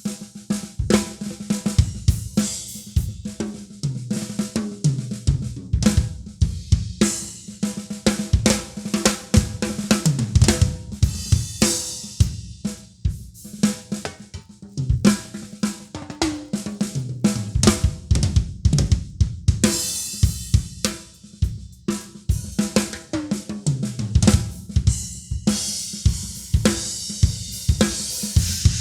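Acoustic drum kit played continuously: a fast groove on bass drum, snare and hi-hat, broken every few seconds by fills of falling-pitch tom hits and crashing cymbals.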